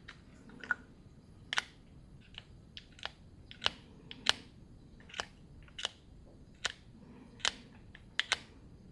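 Irregular sharp clicks and taps, about a dozen, of small hard plastic and metal parts being handled at the workbench.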